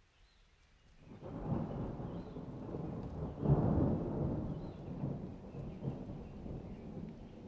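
A long rumble of thunder that swells about a second in, peaks just past the middle and slowly dies away.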